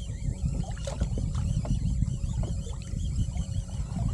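Fishing reel being cranked to bring in a hooked fish, a wavering whir that rises and falls several times a second, with scattered clicks. Under it runs a steady low rumble, which is the loudest sound.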